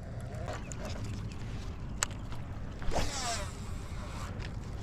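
A fishing reel whirring briefly about three seconds in, falling in pitch as line pays out, after a single sharp click a second earlier, over a steady low rumble.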